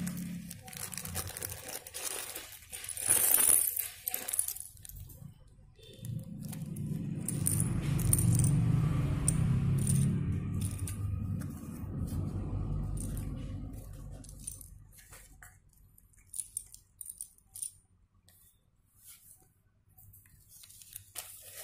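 Small plastic building-block pieces clattering and clicking onto a hard tabletop as they are tipped out of a plastic zip bag, with the bag crinkling in the first few seconds. A low muffled rumble of handling follows, then scattered single clicks as pieces are moved about.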